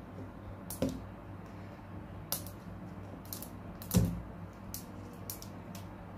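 Fingernails picking and peeling at the wrapping of an LOL Surprise Pets ball: scattered small clicks and crinkles at an uneven pace, the loudest tap about four seconds in, over a steady low hum.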